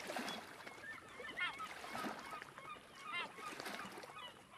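A flock of water birds calling: many short, faint honking calls, over and over.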